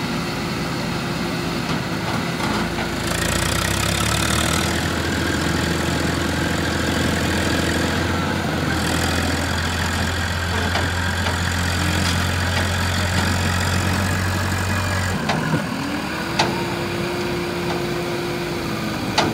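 Eicher 650 tractor's diesel engine working hard under load, pulling a loaded trolley through soft dirt. A deep, heavy drone comes in a few seconds in and holds until about three-quarters of the way through. The engine note then dips and climbs again.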